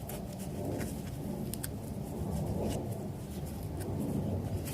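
Handling noise: a few soft clicks and light scrapes over a low, steady rumble.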